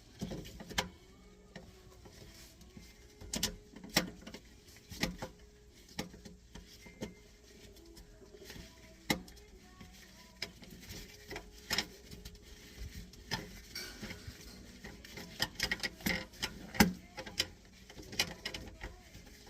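Irregular clicks and knocks of plastic drain fittings being handled and fitted together: P-trap pieces and slip nuts.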